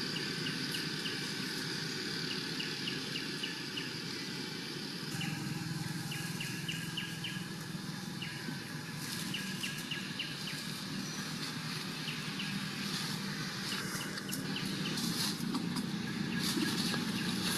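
Outdoor ambience: a steady low rumble like distant traffic, with runs of quick, evenly spaced high chirps and a few brief sharp rustles in the second half.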